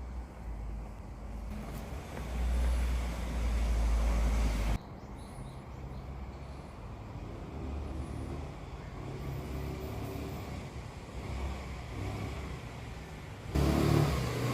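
A passenger car close by, its engine rumbling loudest in the first few seconds before cutting off abruptly. A quieter rumble follows, and a loud stretch starts suddenly near the end.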